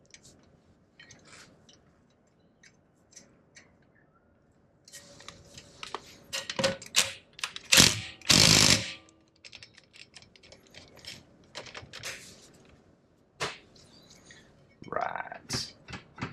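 Faint clicks of a bolt being threaded by hand at a brake rotor's hub, then a Ryobi cordless driver running in short bursts to drive the bolt in. The longest burst, just under a second, comes about eight seconds in.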